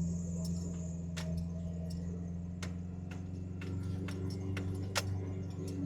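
Jeep Wrangler TJ engine running steadily in four-wheel-drive low range as it climbs through snow, with scattered clicks and rattles over it.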